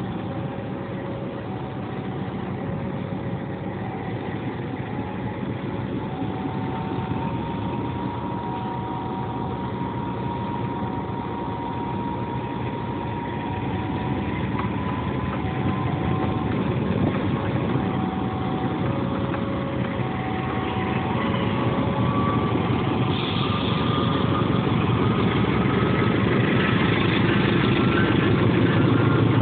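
Diesel locomotive engine running at the head of a waiting passenger train, its sound building gradually with a faint whine that slowly rises in pitch as it throttles up to pull away. Through it a level-crossing alarm alternates evenly between two tones.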